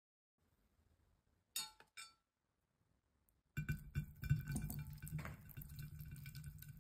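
Large water beads (orbeez) tumbling into a cut-glass bowl, clinking against the glass and each other in a dense run of small clicks that starts about halfway through. Before that it is near silence apart from two short sharp clicks.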